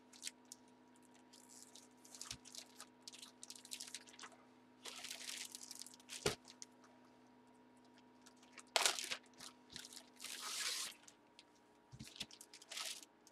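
Plastic poly bag crinkling and rustling as it is handled, in irregular bursts, with one sharp click about six seconds in.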